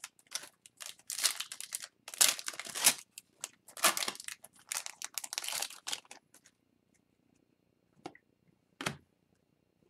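A foil O-Pee-Chee Platinum hockey card pack being torn open and crinkled by hand: about six seconds of rustling, crackly tearing. Near the end come two faint clicks as the cards are handled.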